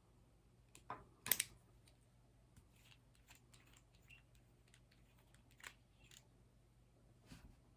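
Faint, scattered taps and clicks of a Pentel Sharp Carry mechanical pencil being handled, with two louder knocks about a second in.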